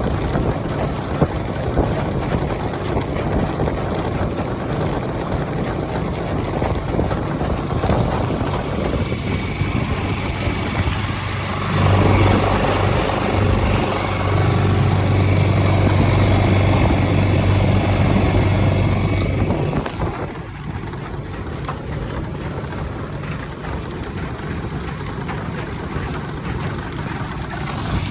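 Suzuki DF6A 6 hp four-stroke outboard motor running at low throttle, just above idle, as it is broken in: a steady low hum with hiss over it. About twelve seconds in it grows louder for several seconds, then drops back.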